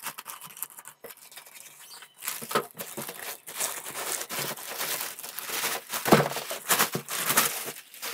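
Plastic courier mailer bag being cut with scissors, then crinkling and rustling, louder from about two seconds in, as a cardboard box is pulled out of it.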